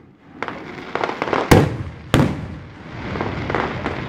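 Aerial fireworks bursting overhead: several sharp bangs, the two loudest about one and a half and two seconds in, followed by a stretch of softer, quicker pops.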